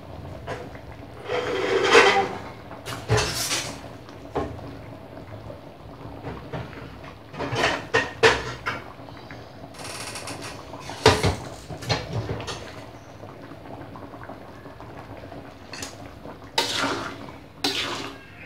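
A kitchen utensil knocks and scrapes against an aluminium wok at scattered moments over a steady low background, with stirring through the thick sauce near the end.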